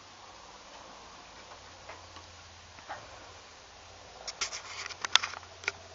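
Kittens chewing and biting corn kernels off the cob: scattered small clicks, then a quick run of louder clicks in the last third.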